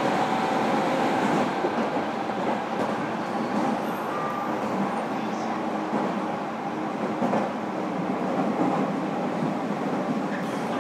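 Steady interior running noise of a JR Kyushu 305 series electric multiple unit, heard from inside one of its motor cars as the train runs between stations.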